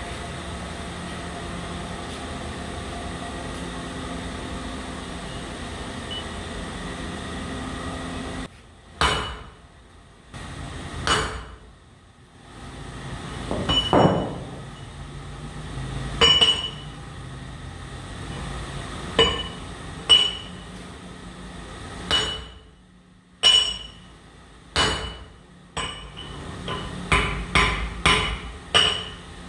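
A steady machine running noise stops abruptly about eight seconds in. Hammer blows on metal follow, each with a short bright ring, at first one to three seconds apart and then several in quick succession near the end.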